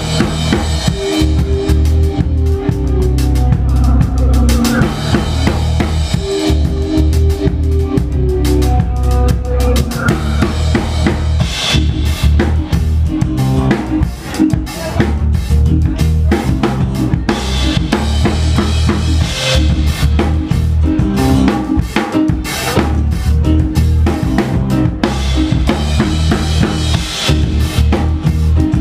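Live band playing an instrumental passage: a steady drum-kit beat with bass drum and snare over electric bass, guitar and keyboards.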